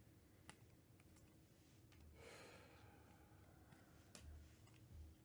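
Near silence: a few faint ticks of glossy trading cards being flipped through by hand, and a soft breathy swish about two seconds in.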